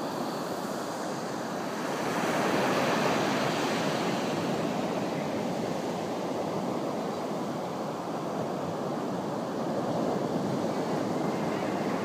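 Black Sea surf breaking and washing in over a sandy beach, a steady rush that swells about two seconds in and again near the end.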